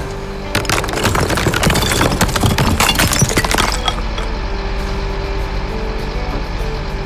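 Demolition debris crashing down: a dense clatter of many hard pieces breaking and falling, with glassy clinks, for about three seconds. It then settles into a low rumble.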